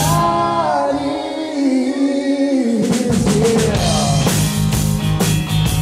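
Live rock band with electric guitar, bass and drum kit playing. A held note slides down near the start, then the bass and drums drop out for a couple of seconds. The drums come back in with the full band about three seconds in.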